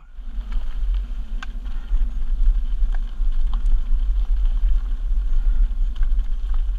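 Mountain bike rolling fast down rocky dirt singletrack: a steady rumble of wind on the microphone, with tyres crunching over loose gravel and scattered sharp clicks and rattles from stones and the bike.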